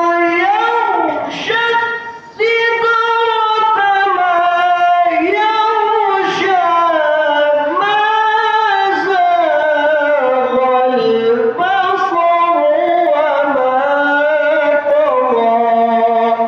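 A Quran reciter's voice in melodic tilawah, drawing out one long ornamented phrase in a high register with a sliding, wavering pitch. There is a short break about two seconds in before the line goes on.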